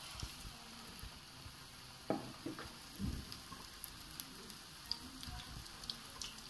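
Batter-coated green chillies deep-frying in hot oil, a faint steady sizzle with small crackles and pops. A few soft knocks, the sharpest about two seconds in.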